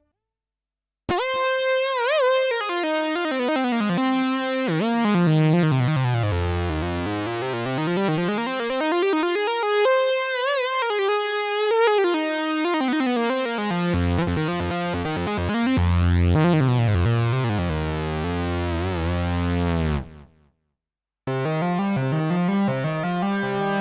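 Sequential OB-6 analog polysynth playing a demo patch: a bright, many-voiced sound that glides down in pitch and back up again, with low bass notes joining about two-thirds of the way through. It stops about twenty seconds in, and after a second of silence the next patch starts with held notes.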